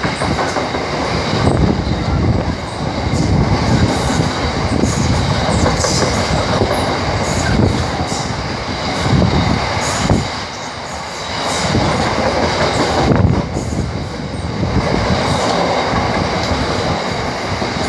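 Freight train's bogie oil tank wagons rolling past close at speed: a loud, continuous rumble of steel wheels on rail, with repeated wheel knocks every second or two.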